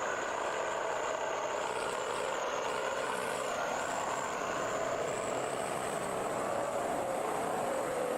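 Heavy logging truck engine running steadily under load, with a thin high whine that wavers.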